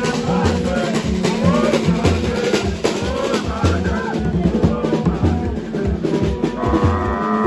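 Hand drums beaten by marchers in a quick, steady rhythm. Bending pitched sounds over the drumming may be voices. About six and a half seconds in, a held steady tone joins.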